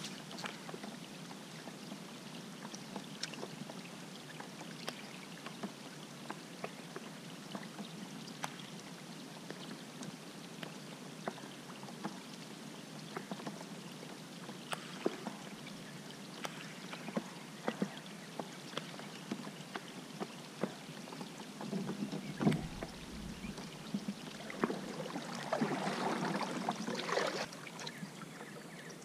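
Light rain falling on the river and the kayak: a steady hiss with scattered, irregular drop ticks. A single thump comes about two-thirds of the way through, and a louder rustling stretch lasts a couple of seconds near the end.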